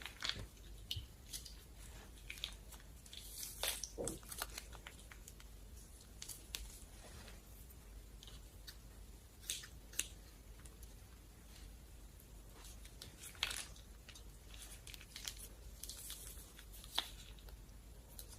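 Slime being squished and worked, giving irregular sticky clicks and small crackling pops, with a few louder pops along the way.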